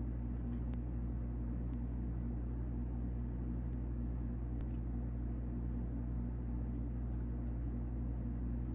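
Steady low background hum, with a few faint clicks in the first half.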